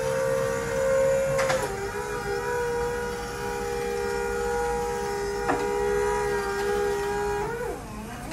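Electric reach truck's hydraulic lift pump whining steadily as the mast raises a loaded pallet. The pitch steps down slightly about a second and a half in and sags near the end as the lift eases off.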